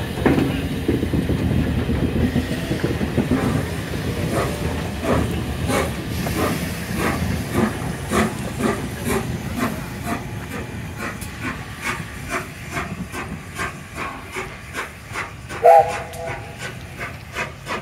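LNER Peppercorn A1 Pacific steam locomotive 60163 Tornado moving past close by with a heavy rumble and a hiss of steam, then pulling away, its exhaust beats coming quicker and quicker as it gathers speed. A short whistle blast sounds near the end.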